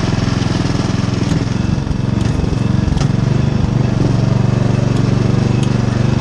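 Riding lawn mower engine running steadily under load as it tows a wagon, with a few sharp knocks scattered through.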